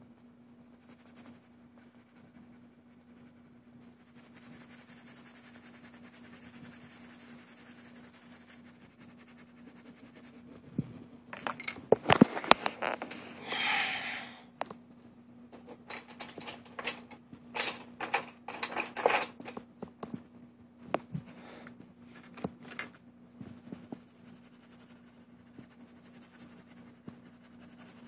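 Felt-tip marker strokes scratching over paper, then a run of sharp clicks, knocks and scrapes from markers being handled on the desk, loudest about twelve seconds in.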